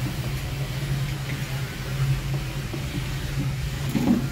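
Steady low hum of an engine running at an even speed, with a short louder sound about four seconds in.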